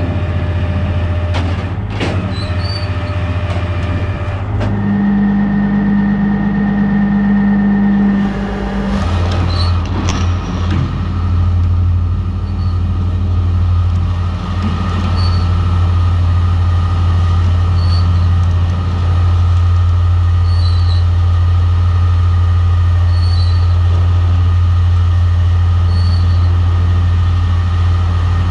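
Heavy truck engine running steadily with a deep, even hum; its tone changes for a few seconds about five seconds in, then settles back. A few sharp clicks come near the start and around ten seconds in.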